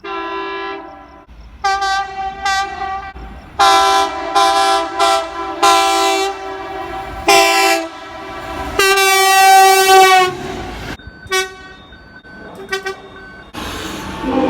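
Train horn sounding a series of blasts, some short and some long. The longest and loudest blast ends about ten seconds in. Fainter horn notes follow, and a rushing noise comes near the end.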